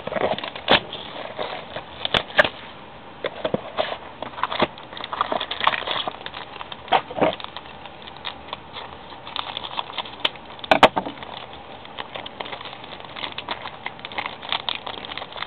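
A trading-card box and pack being opened and handled: irregular rustling and crinkling of cardboard and wrapper, with sharp clicks and taps now and then.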